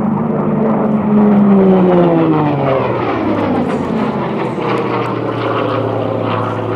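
Hawker Sea Fury's Bristol Centaurus 18-cylinder sleeve-valve radial engine and propeller running at high power in flight. The note is loudest and highest early on, falls in pitch between about one and three seconds in as the aircraft goes by, then holds steady and lower as it climbs away.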